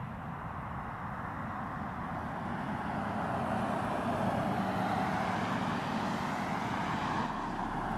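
A Boeing 737's jet engines running at takeoff thrust, heard from afar: a steady noise that slowly swells to its loudest in the middle and eases slightly near the end.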